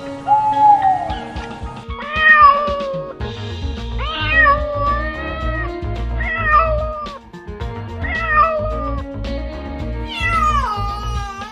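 Domestic cat meowing about five times, drawn-out meows roughly every two seconds, over background music.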